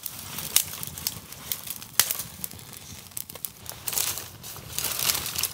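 Dry beech twigs and brushwood rustling and snapping as they are piled onto a small campfire, with irregular sharp cracks from the burning wood. The rustling grows louder about four seconds in.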